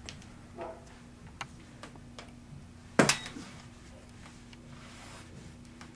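Light clicks and taps from handling a 12-gauge shotgun while a bore snake is pulled through its barrel, with one sharp knock about three seconds in.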